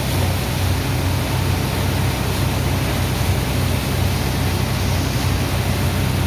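Sand-unloading dredger machine running steadily: a low engine hum under a constant rushing noise, with no change in speed.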